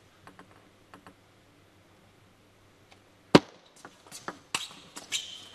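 Table tennis ball being played: a few faint taps, then about three and a half seconds in a loud sharp crack off a bat, followed by a quick run of clicks as the ball strikes bats and table in a fast rally.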